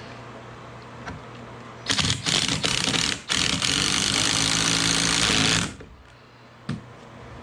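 Cordless power driver driving a screw through plywood subfloor: a few short stuttering bursts, then a steady run of about two and a half seconds that stops abruptly. A single knock follows near the end.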